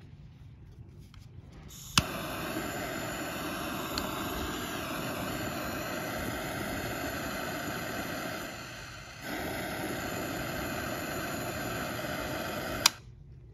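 Whip It! Stealth butane jet torch lit with a sharp piezo-ignition click about two seconds in, then burning with a steady hiss. The hiss dips briefly a little before nine seconds and comes back, then stops with a click near the end.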